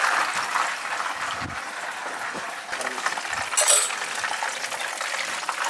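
Battered pollock fillet deep-frying in a pan of hot oil, the fat sizzling and crackling steadily. A brief sharp metallic clink about three and a half seconds in.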